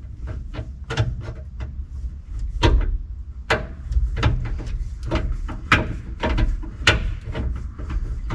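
Hand tools and hardware being handled: a string of sharp clicks and knocks at uneven intervals, about one a second, over a low rumble.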